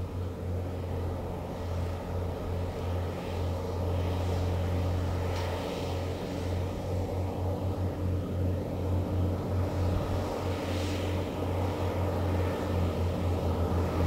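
Two Fendt 724 Vario tractors' six-cylinder diesel engines running steadily under ploughing load, a low drone that grows slowly louder as they come closer.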